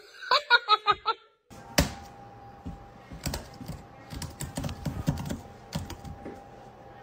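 A computer keyboard clicking in an irregular run of key taps, over a faint steady hum. A short burst of laughter comes first and cuts off about a second in.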